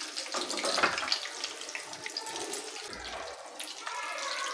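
Egg-coated chicken drumsticks deep-frying in hot oil in a pan: a steady bubbling hiss full of small crackles, a little louder about a second in.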